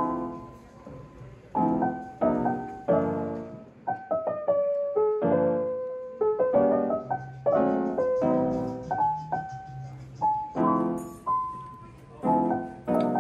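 Background piano music: chords and a melody line, each note struck and then fading.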